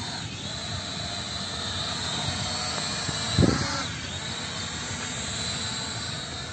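Three E88 toy quadcopter drones flying together just after lift-off, their small propeller motors making a steady high-pitched whine over a whirring buzz. A short low thump comes about three and a half seconds in.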